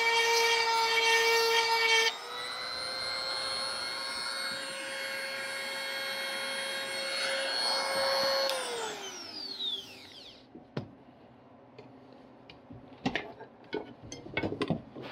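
Electric chainsaw sharpener whining as its grinding stone works a chain tooth. The grinding noise drops away about two seconds in and the motor runs on alone, then it is switched off and winds down with a falling whine. A few light clicks and knocks follow.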